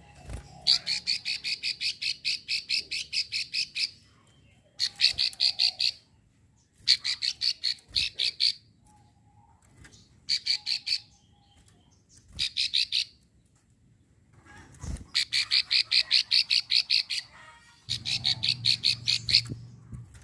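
Female plain prinia (prenjak sawah) giving its 'klik' call: rapid runs of dry, evenly spaced clicking notes, about seven runs each lasting one to three seconds, with short pauses between them.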